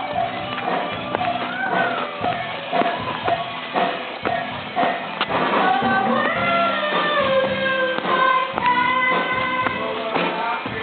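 Loud church music: a sung melody that glides up and down over tapping percussion like a tambourine.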